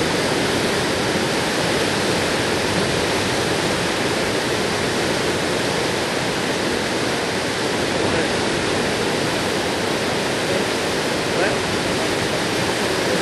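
Steady rushing of river water, an even noise that holds at the same level throughout.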